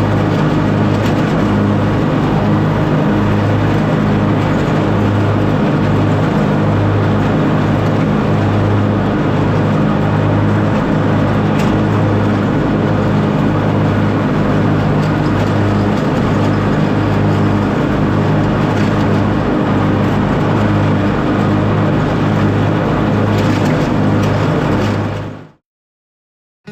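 Lawn mower engine running steadily under load, with a slight regular pulsing; it cuts off suddenly near the end.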